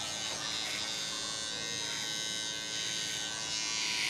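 Electric hair trimmer, used without a guard, running with a steady high buzz, a little louder near the end as it works on the hair at the nape.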